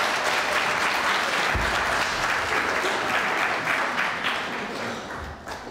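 Audience applauding, fading away near the end, with a single dull low thump about a second and a half in.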